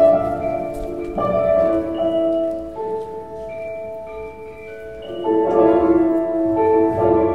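Instrumental background music of held notes and chords that change every second or two. It softens in the middle and swells again about five seconds in.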